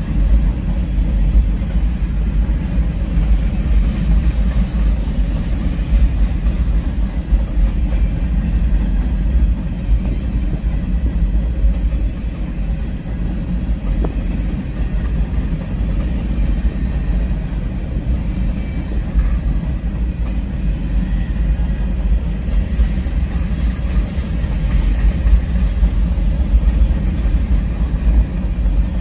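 Freight train of covered hoppers rolling by, a steady low rumble with no distinct clanks or horn.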